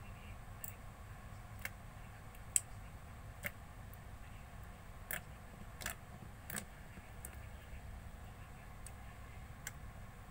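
Slime being kneaded and mixed by hand, giving irregular sharp clicks and pops, about a dozen, the loudest about two and a half seconds in. The two slimes are not yet blended together.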